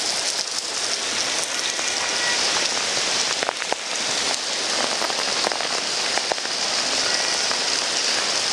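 Heavy rain falling, a steady hiss with many separate drops hitting close by.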